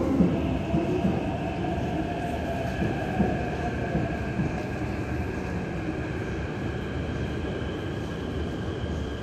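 Hong Kong MTR Q-Train arriving at a metro platform and braking to a stop, heard through the platform screen doors. The electric traction motors' whine falls steadily in pitch over the rumble of the wheels, with a few knocks in the first few seconds.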